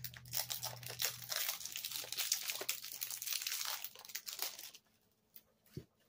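Product packaging being unwrapped by hand, crinkling and tearing for about five seconds before stopping, with a couple of faint clicks near the end.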